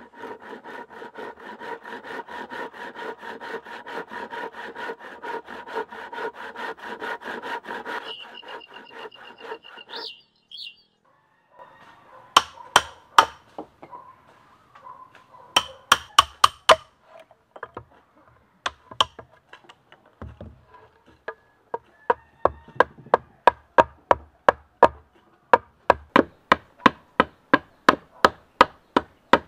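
A handsaw cutting through a bamboo pole with quick, even strokes for about eight seconds. After a short pause come sharp knocks on bamboo in runs of several blows, as the poles are struck and shaped.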